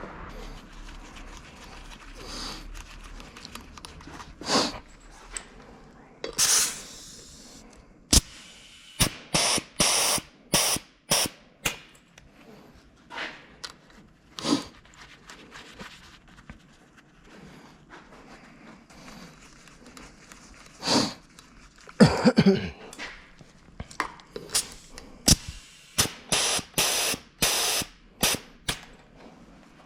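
Workshop tool and parts handling: an irregular series of sharp clicks and knocks, bunched into quick runs, with a couple of short hissing bursts.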